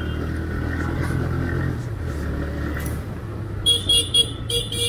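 TVS Raider 125's single-cylinder engine running at low road speed with wind and road noise; the engine note drops about three seconds in. Near the end a vehicle horn toots about five times in quick succession.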